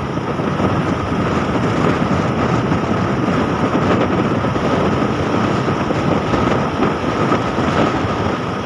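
Steady noise of a road vehicle under way: engine and road noise with rushing air, and a faint steady high tone running through it.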